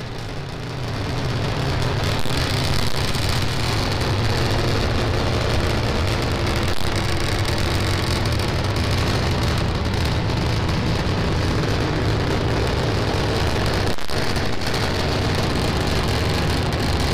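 SpaceX Starship SN10's three Raptor engines firing during ascent: a steady deep noise that grows a little louder a second or two in.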